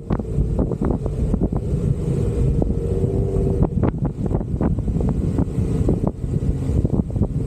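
An off-road 4x4 driving over rough ground: a steady engine and drivetrain rumble with frequent knocks and rattles, and wind buffeting the microphone.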